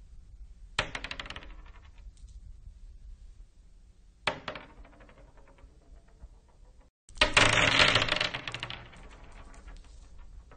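Glass marbles dropped onto a wooden floor, clattering and bouncing in quick clicks that die away. There are three drops: one about a second in, a shorter one around four seconds, and the loudest, longest clatter about seven seconds in.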